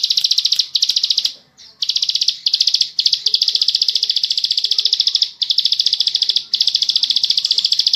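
Ciblek sawah (plain prinia) singing its long, fast 'ngebren' trill: rapid, evenly spaced high notes at roughly ten a second, in runs of one to two seconds with brief breaks between them.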